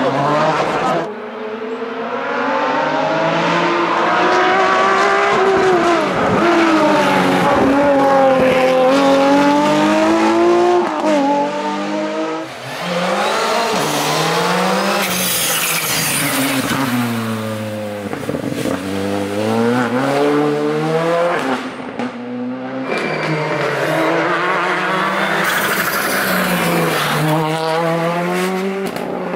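Rally cars driven flat out on a special stage, one after another: engines revving high and dropping away through gear changes, with tyre squeal.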